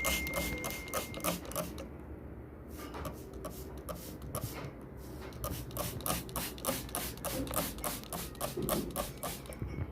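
A quick, even series of light clicks or taps, about four a second. The fading ring of a bell-like ding dies away in the first second or so.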